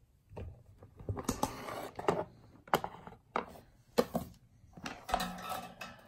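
Plastic table fan being handled and set down on a hardwood floor: rustling and scraping with several sharp plastic knocks against the wood.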